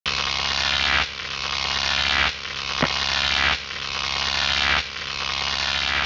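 Harsh electronic buzz with a low hum under it, swelling and dropping back in a regular cycle about every second and a quarter, with one sharp click near the middle.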